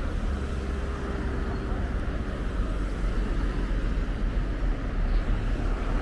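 Steady low rumble of outdoor beachfront ambience, strongest in the deep lows, with no single event standing out.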